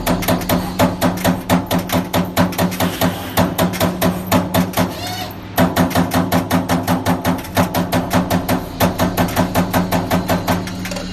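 Servo CNC turret punch press punching sheet metal in rapid series, about five hits a second, over a steady machine hum. The hits stop briefly about five seconds in, with a short gliding whine just before, and again near three-quarters of the way through, then carry on.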